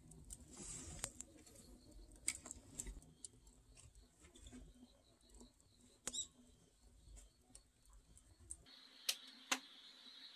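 Wood fire burning in the firebox of a Korean ondol floor-heating system: faint scattered crackles and pops over a low rumble. About eight and a half seconds in the rumble cuts off, leaving a steady high insect drone with a couple of sharp clicks.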